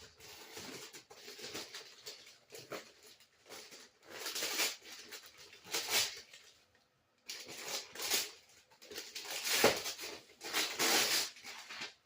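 Gift wrapping paper being torn open and crinkled in irregular bursts, with a brief pause partway through and a sharp rip about two-thirds of the way in.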